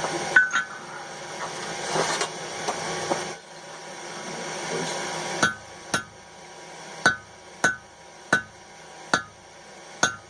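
Hand hammer striking hot steel in a blacksmith's nail header, heading a nail. About seven blows, roughly one every three-quarters of a second, begin about five seconds in, and each gives a short metallic ring. Before them, a steady hiss with a couple of sharp knocks cuts off about three seconds in.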